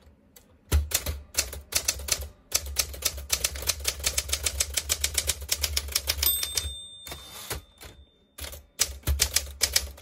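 Smith Corona Sterling manual portable typewriter being typed fast with two fingers: rapid clacking of keys and typebars in quick runs with short pauses. A bell rings once about six seconds in, and the typing stops for nearly two seconds before starting again.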